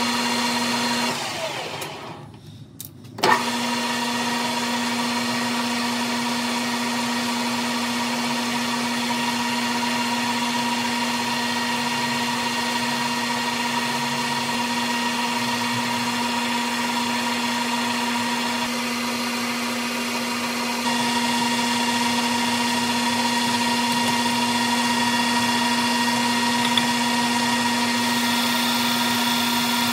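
Metal lathe running with a steady whine as its chuck spins an aluminium part. It winds down about a second in and starts up again with a click about three seconds in.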